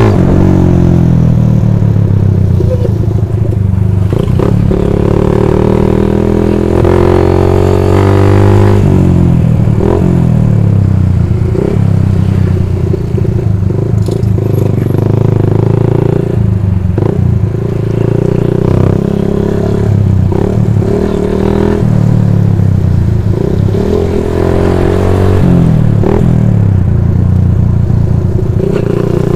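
Motorcycle engine running hard under the rider, rising in pitch as it accelerates and dropping back at each gear change, several times over, with short clatters over it.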